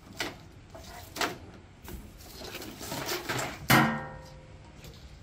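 Handling noises from a wiring harness in plastic corrugated loom being pulled and moved on a riding mower: light rustles, clicks and knocks. About three and a half seconds in comes a brief low hum-like voiced sound, the loudest thing heard.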